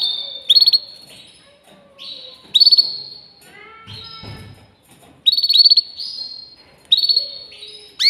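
Domestic canary singing: repeated high phrases of fast trilled notes that run into a held whistle, one phrase every second or two, with a brief run of lower, falling chirps about halfway through.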